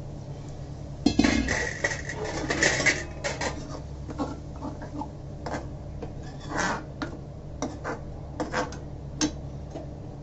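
Metal kitchenware clattering against a steel cooking pan, loudest about a second in as water is added to the masala, then a metal ladle clinking against the pan again and again while the gravy is stirred.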